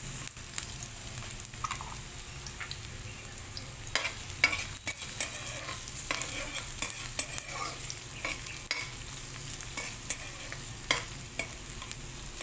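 Chopped red onions sizzling in hot oil in a metal wok, with a metal spatula scraping and clinking against the pan as they are stirred.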